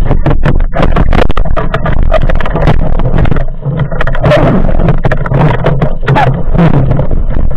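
Loud underwater noise from a speargun-mounted camera housing: water rushing past with many sharp clicks and knocks as the gun is moved, over a steady low rumble.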